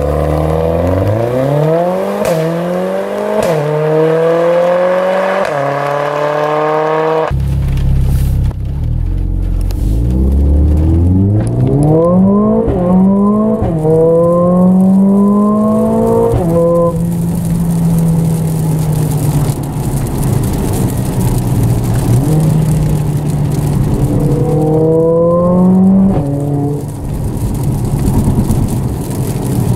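Mercedes-AMG CLA45 S's turbocharged four-cylinder engine through a catless valved exhaust, accelerating hard through the gears: the engine note climbs and drops with each upshift. It then runs at a steadier pitch for a while before another climb and drop near the end.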